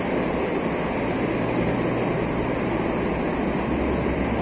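Steady hum and rush of a fish room's machinery, with water pumps, air blowers and circulating water running continuously under a low even hum.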